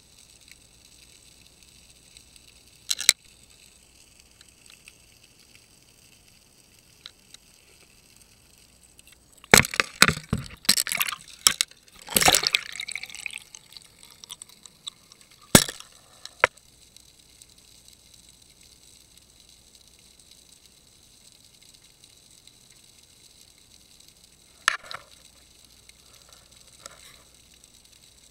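Water noise and knocks heard through a submerged fishing camera's housing: a sharp double knock a few seconds in, a burst of clattering knocks and sloshing near the middle, then a few single knocks, over a faint steady hum.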